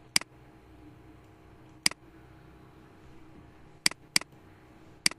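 Computer mouse button clicking five times at irregular intervals, two of the clicks in quick succession about four seconds in, over a faint steady hum.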